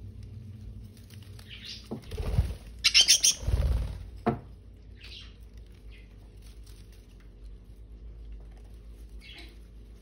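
A budgerigar gives short chirps every few seconds. About two seconds in there is a loud burst of rustling leaves and thuds, lasting about two seconds, as the bird clambers through a potted plant.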